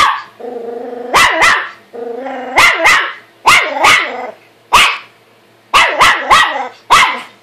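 A small dog barks at its own reflection in a mirror: about a dozen sharp barks, several in quick doubles, with a held low growl between the first few barks.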